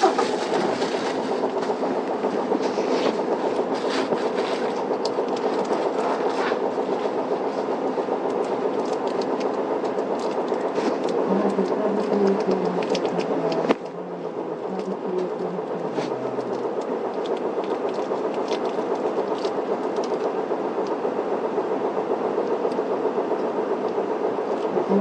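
Isuzu Erga city bus's diesel engine idling, heard from inside the bus cabin, with scattered small clicks and rattles. About fourteen seconds in, the engine noise drops suddenly to a quieter idle.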